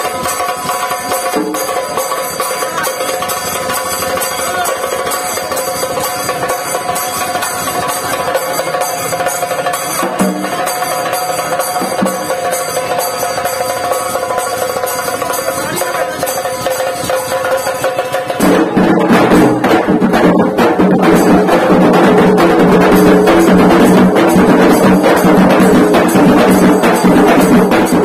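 Dhol tasha band drumming a fast, dense beat on large barrel dhols, with steady held tones running over it. About two-thirds of the way through the sound jumps suddenly louder and fuller.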